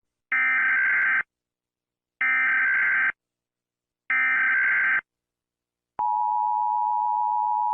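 Emergency Alert System header: three short bursts of the SAME digital data tones, each just under a second long and about two seconds apart. About six seconds in, the steady EAS attention tone starts and holds.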